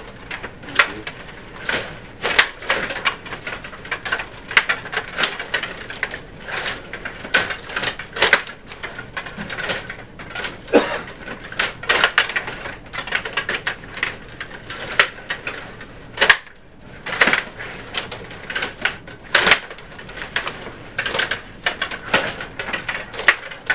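Table hockey game in play: rapid, irregular clacking and clicking of the rods, plastic players and puck, with a brief lull about two-thirds of the way in.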